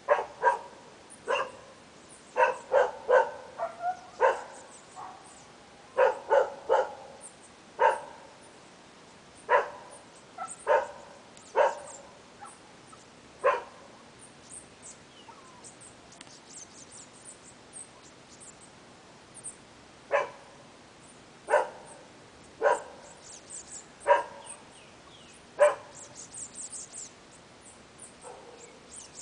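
Dog barking in single barks at irregular intervals, with a pause of several seconds midway. Behind them, a bananaquit gives high, thin chirps, more of them near the end.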